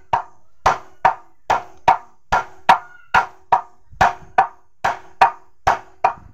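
A hammer striking the butt end of a wooden handle over and over, about two and a half blows a second, driving the handle onto a dao blade.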